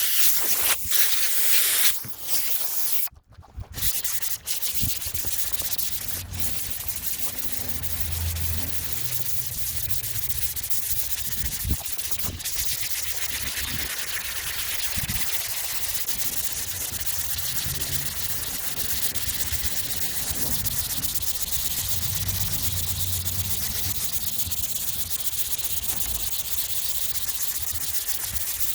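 Long sanding block rubbing sandpaper across a steel car hood coated in Slick Sand high-build primer, a steady rasping hiss of hand block sanding. There is a brief pause about three seconds in.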